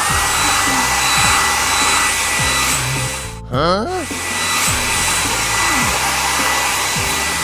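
Cartoon car-wash air-blower sound effect: a steady rush of air with a thin high whine, drying the truck. About three and a half seconds in it drops out briefly for a wobbling, gliding sound effect, then resumes.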